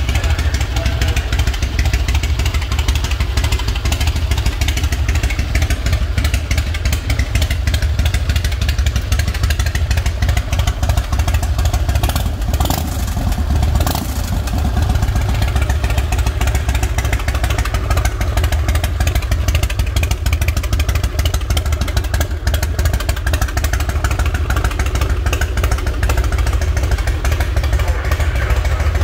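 The Twin Cam 88B V-twin of a 2001 Harley-Davidson Night Train idling steadily with a deep, even rumble.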